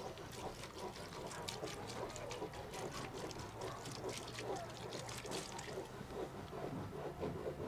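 Potatoes being peeled by hand with a knife: short, crisp scraping strokes, irregularly a few per second.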